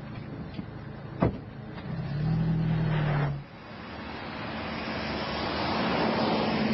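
A car: a sharp click about a second in, then a low steady hum for about a second and a half that cuts off suddenly. After that comes car noise that grows louder and stays up to the end.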